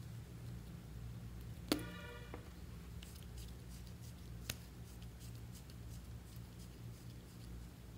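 Cap pulled off a plastic glue stick with a sharp pop that rings briefly about two seconds in, followed by faint clicks and a second small click as the stick is handled and twisted up, over a low steady hum.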